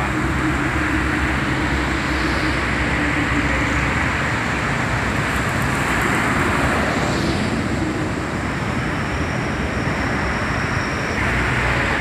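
Diesel engine of a Mercedes-Benz double-decker coach running low and steady as the coach rolls slowly forward and pulls up, over a steady wash of street traffic noise.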